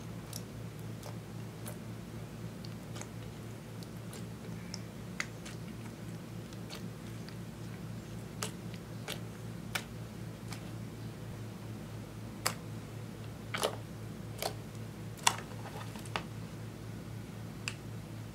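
Clear slime mixed with white eyeshadow being kneaded and pressed by hand: scattered sticky clicks and pops, coming more often in the second half, over a steady low hum.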